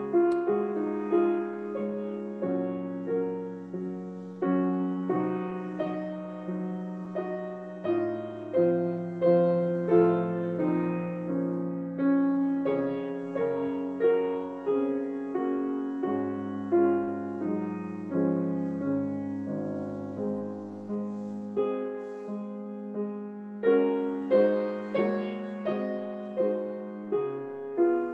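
Solo piano playing a slow instrumental piece. Each note starts sharply and fades, with low bass notes held underneath the melody, and no singing.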